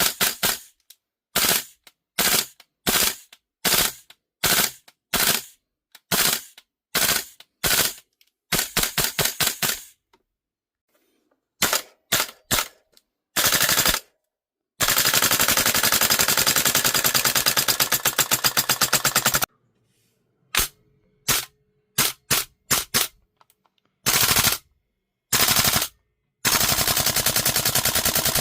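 VFC AR-15 gas-blowback airsoft rifle firing, each shot a sharp crack with the bolt cycling. It fires many short bursts of a few rounds each, then about five seconds of continuous full-auto in the middle, more short bursts, and another sustained full-auto string near the end.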